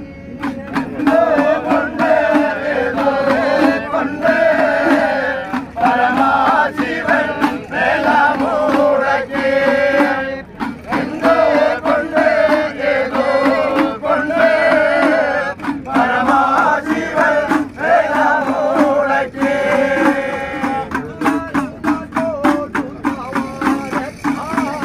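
A group of men chanting an Ayyappa devotional song in unison, in short repeated phrases, over the rapid beating of small hand-held drums. The voices drop out near the end while the drums keep going.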